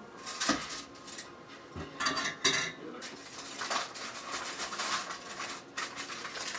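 Kitchen clatter of dishes and utensils being handled at the counter: a run of clinks and knocks, the loudest around two seconds in.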